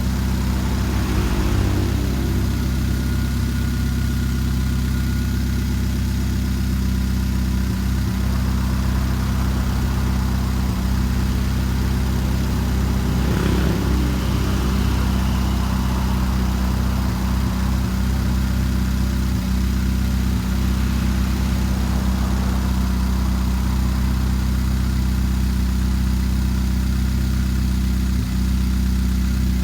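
Engine of a 2013 Chevrolet Spark idling with a misfire: a steady low running sound broken by brief, irregular stumbles every few seconds.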